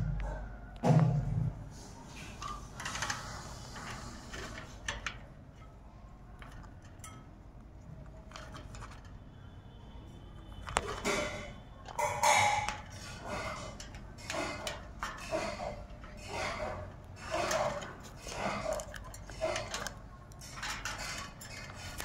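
Rose-ringed parakeet making a run of short calls, roughly one a second, through the second half. There is a loud thump about a second in.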